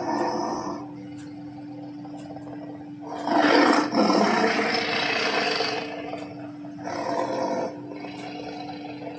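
Dragon roar sound effect for an ice dragon. A long, loud roar starts about three seconds in and lasts nearly three seconds, and a shorter roar follows near the end. The tail of an earlier roar dies away in the first second, and a steady low hum runs underneath.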